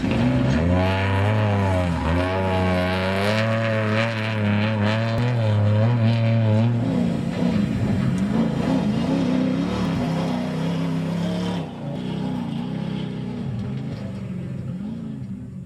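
Off-road desert race truck engine revving hard, its pitch rising and falling as the truck races; it grows fainter after about twelve seconds.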